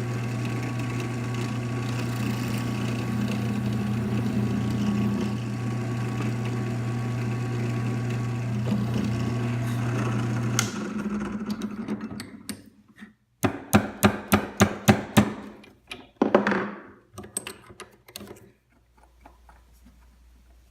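An electric power tool's motor runs steadily for about ten seconds while working 1/8-inch steel rod for sling mounts, then stops. A couple of seconds later comes a quick run of about ten sharp knocks, like hammer taps.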